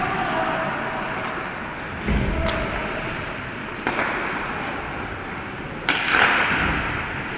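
Ice hockey play on an indoor rink: the steady scrape of skates on the ice, broken by sharp clacks of sticks and puck about two, four and six seconds in, the last the loudest.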